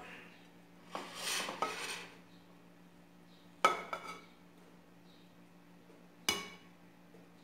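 A metal slotted spoon scraping rice in an aluminium cooking pot for about a second, then sharp ringing clinks of the spoon against the pot: two close together in the middle and one more near the end.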